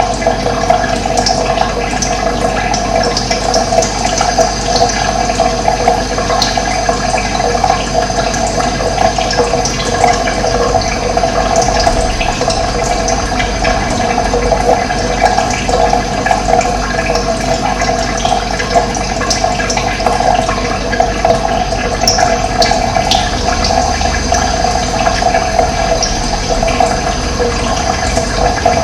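Running water rushing steadily and evenly.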